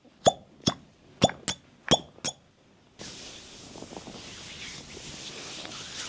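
Cupping cups making six quick pops on the skin in the first two seconds or so, each with a short falling tone. After that a steady hiss sets in about halfway through.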